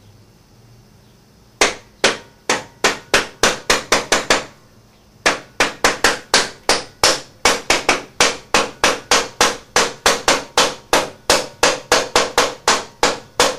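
Plastic hammer striking the end nut threaded onto a motorcycle frame-slider bolt, driving the bolt in. About a second and a half in comes a quick run of sharp blows, then a short pause, then a long steady run of blows at about three to four a second.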